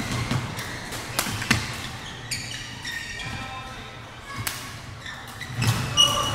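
Badminton rackets striking a shuttlecock in a doubles rally: several sharp hits at irregular intervals, with short squeaks of sports shoes on the court floor. There is a low murmur of a crowd in a large hall.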